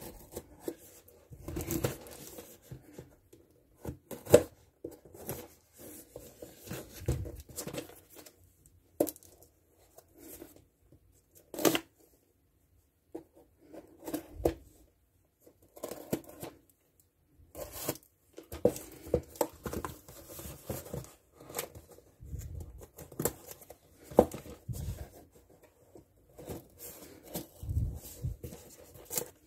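A taped cardboard box being torn open by hand: irregular ripping, scraping and rustling of cardboard and packing tape, with a few sharp snaps.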